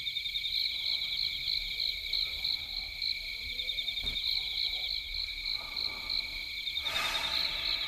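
Crickets chirping steadily in an even pulsing rhythm, about three chirps a second.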